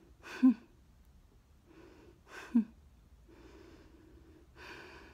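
A woman's breathing, with two short, sharp voiced catches in the breath about half a second and two and a half seconds in, and softer breaths between them.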